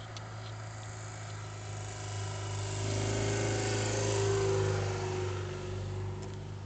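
Road traffic with a steady low engine hum; a little over two seconds in, a vehicle approaches and passes close by, its engine note swelling and then fading.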